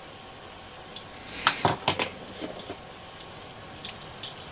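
Small metal screening can of a transistor-radio IF transformer clicking and scraping as a fine tool prises at its tabs and the can is worked off the coil. There is a cluster of sharp metallic clicks about a second and a half in, then a few lighter ticks.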